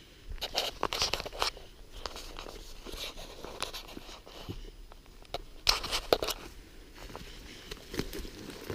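Footsteps crunching through dense forest undergrowth, with irregular snaps and rustles of twigs and brush; the densest clusters come about a second in and again around six seconds in.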